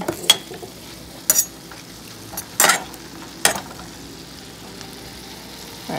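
Shrimp and zucchini sizzling in a stainless steel skillet, with a steady frying hiss. A kitchen knife used as a stirring utensil knocks and scrapes against the pan about five times in the first few seconds.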